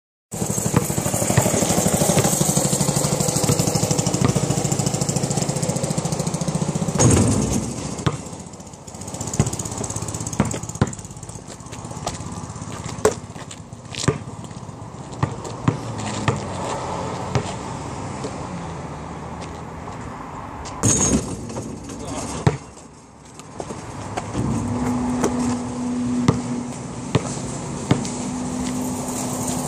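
Basketball dribbled on an asphalt driveway: sharp bounces at uneven intervals. Under them runs a steady motor hum, loudest for the first several seconds and again near the end.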